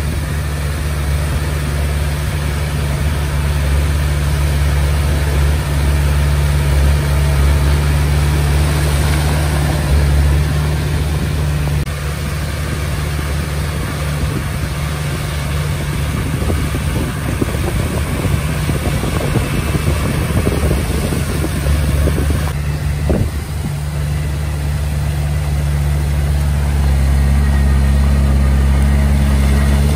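Komatsu D20P bulldozer's diesel engine running with a steady low drone. About halfway through the drone eases and a rattling clatter comes through, ending in a sharp knock. Near the end the engine gets louder again, as under load.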